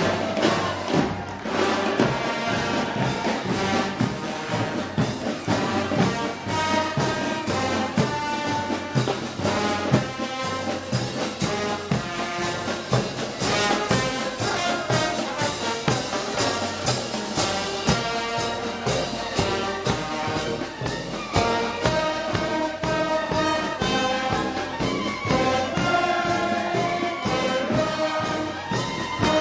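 Brass band with trumpets and trombones playing Moros y Cristianos festival music over a steady drum beat.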